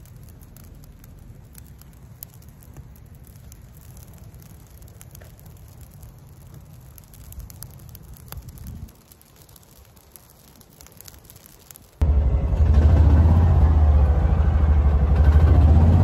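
A smoky brush-pile fire crackling faintly over a low rumble. About twelve seconds in, this gives way abruptly to the loud, steady running of a side-by-side utility vehicle's engine as it drives.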